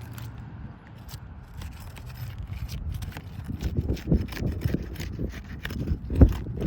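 Asphalt roof shingle being pried loose with a shingle removal tool: the tool and shingle scrape and rub against the roof with scattered sharp clicks. It gets busier and louder from about halfway through, with one hard knock near the end.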